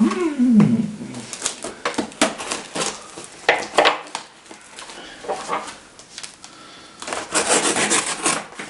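A parcel being opened by hand: packaging paper and tape rustling and tearing in separate short rips, with a longer, denser stretch of tearing and crinkling near the end. A short falling hum of voice is heard right at the start.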